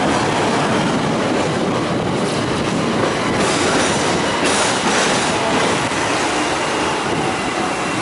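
Hong Kong double-decker electric tram running along its street track, heard from on board: a steady rumble and rattle of steel wheels on the rails, growing brighter and hissier for a couple of seconds near the middle.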